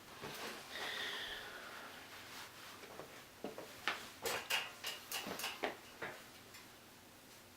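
A brief high squeak that falls slightly in pitch about a second in, then a run of small clicks and knocks in a small room.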